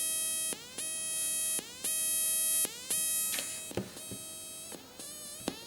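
Homemade multivibrator sound generator playing through a loudspeaker: a buzzy electronic tone repeating about once a second, each note dropping quickly in pitch at its start and then holding steady. In the second half it gives way to quieter, wavering, uneven tones.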